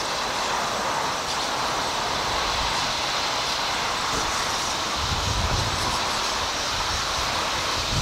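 The dense, steady din of a huge flock of white-cheeked starlings calling together as they swirl over the trees and settle to roost.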